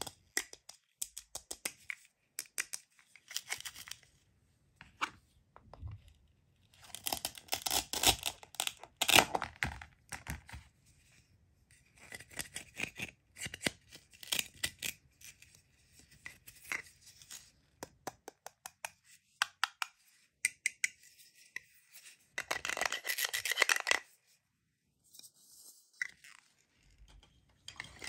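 Velcro pads on a plastic toy pomegranate ripping apart in several crackling bursts as its halves are pulled open, with clicks and taps of the plastic pieces being handled in between.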